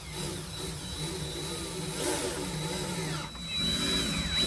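Cordless drill running as it bores holes through a vinyl lattice cap on a wooden rail, in two runs with a short pause about three seconds in.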